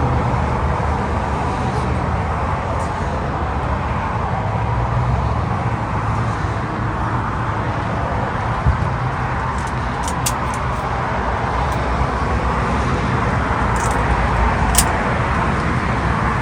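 Steady low rumble and hiss of a vehicle, with a few faint clicks.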